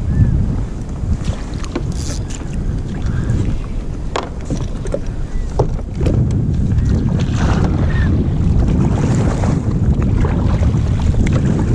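Wind buffeting the microphone on a kayak at sea, a steady low rumble, with water lapping against the hull and a few short sharp clicks.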